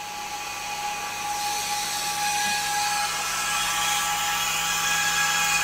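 Cooling fan on a 400 W 432 MHz power amplifier's heatsink running with a steady whir and several steady tones, getting gradually louder, while the amplifier is keyed down at full power. A higher steady tone drops out about halfway through.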